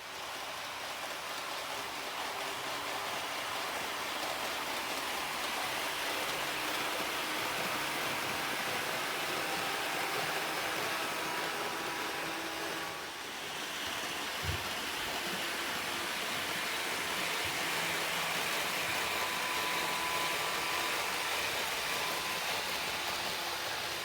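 HO gauge model train running on the layout: a steady rush of wheels on the rails with a faint motor whine. The level dips briefly about halfway through, and there is a single click just after.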